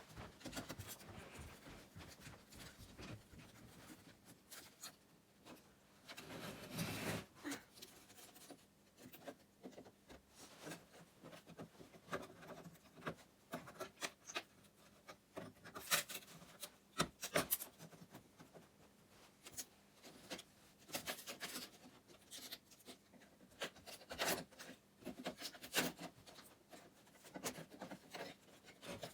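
Scattered knocks, clicks and scraping of wood as old roof boards and birch bark are worked loose and pulled off a small log cabin roof, with the sharpest knocks about 16 and 17 seconds in.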